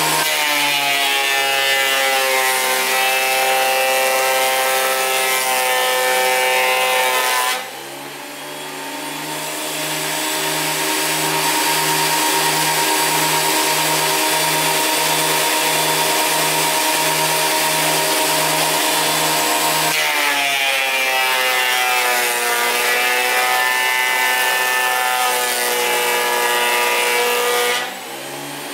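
Ryobi 12-1/2 in. corded thickness planer (RAP1500G) running while planing an old board. The pitch sags as the board is taken under load, at the start and again about 20 seconds in. The sound drops suddenly about seven and a half seconds in and again near the end, then builds back up.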